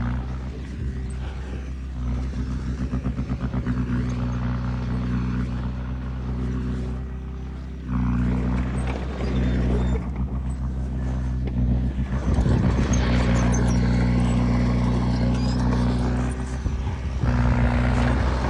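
Heavy diesel engine of earth-moving machinery running steadily, working harder about eight seconds in and again about twelve seconds in, with some clatter in the later part.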